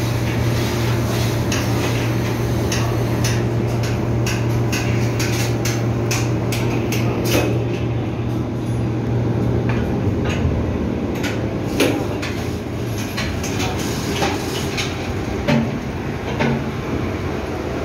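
Steady drone of ship engine-room machinery, with a low hum that drops away about ten seconds in. Over it, frequent sharp metallic clicks and knocks from handling tools and gear at the open crankcase door of the stopped main engine, the loudest knocks near the middle.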